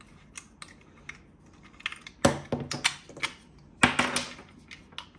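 Hard plastic parts of a car phone mount and its wireless charging head being handled and fitted together: scattered light clicks, with two louder clattering knocks a little after two seconds and just before four seconds in.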